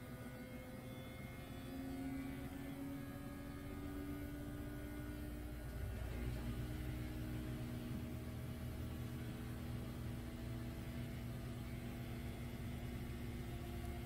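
Handheld electric pet clipper running while trimming the hair on a small dog's paw: a steady motor hum whose pitch wavers slightly as it cuts, over a low rumble.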